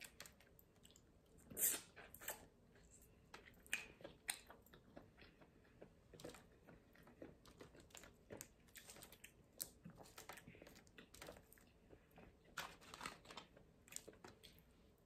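Blue crab shells cracking and crackling as they are picked apart by hand, mixed with close-miked chewing: quiet, scattered small clicks and crunches.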